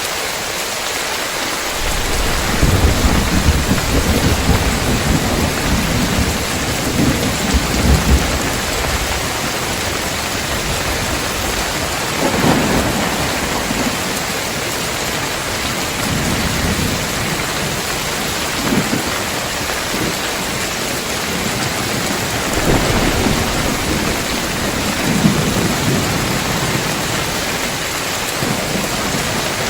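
Heavy rain falling steadily on a tiled roof, with thunder rumbling over it: a long low roll from about two seconds in to about nine seconds, then several shorter rumbles in the second half.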